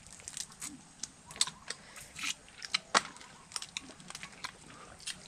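Cooked hermit crabs being cracked open and picked apart by hand and crunched between teeth: an irregular run of sharp clicks and cracks, the loudest snap about three seconds in.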